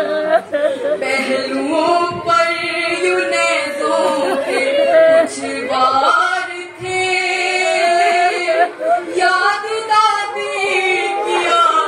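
A woman singing an Urdu nauha (Shia mourning lament) solo and unaccompanied, in long held notes that bend and waver, with a short break for breath about seven seconds in.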